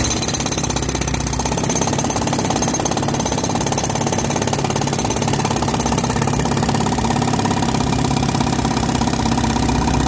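Pneumatic jackhammer with a chisel point hammering steadily into a concrete slab, a continuous stream of rapid blows.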